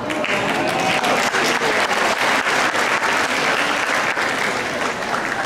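Audience applauding, many hands clapping together; the clapping eases off near the end.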